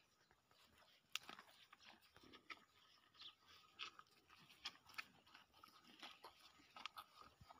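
Near silence with faint, scattered crunches and rustles in dry straw bedding, about a dozen short clicks spread unevenly.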